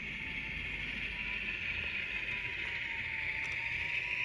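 Model Class 50 diesel locomotive running along the track, a steady whine and hiss that grows gradually louder as it approaches.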